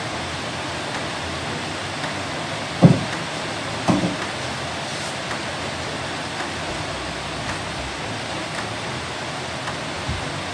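Two dull thumps about a second apart as the hinged cover of a wall-mounted solar-power panel box is swung shut, over a steady hiss.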